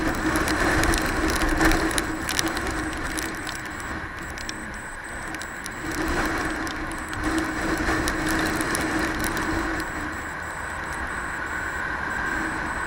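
Motorcycle engine running steadily at cruising speed, with wind and wet-road tyre noise on a helmet-mounted camera. A scatter of light ticks in the first few seconds.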